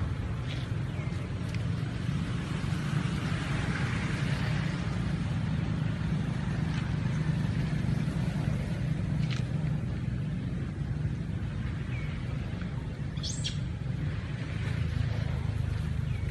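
Outdoor ambience: a steady low rumble with a few brief clicks and short high chirps, one of them about three quarters of the way through.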